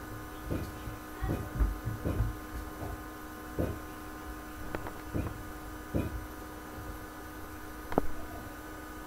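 Steady electrical hum with a string of soft, irregularly spaced low thuds over it. One thud about eight seconds in is sharper than the rest.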